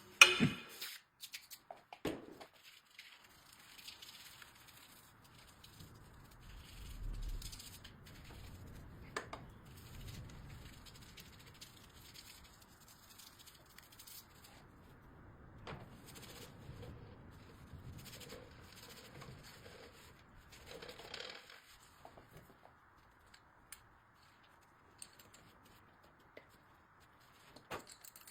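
Workshop handling noise while a mountain-bike air suspension fork is serviced: scattered clicks, clinks and rattles of parts and tools, with a sharp knock right at the start and a smaller click about two seconds in.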